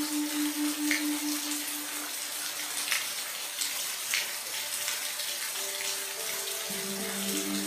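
Steady rain hissing, with scattered individual drops splashing. Faint sustained tones sit underneath: a low pulsing one for the first two seconds or so, and a few higher ones coming in near the end.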